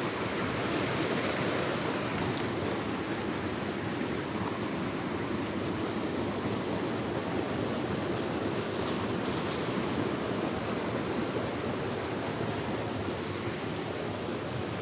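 Steady rush of a flowing river's water.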